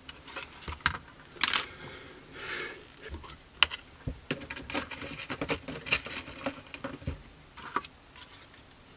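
Irregular small clicks and taps of a plastic scale-model airframe and hobby tools being handled and set down on a cutting mat, with a few short scrapes.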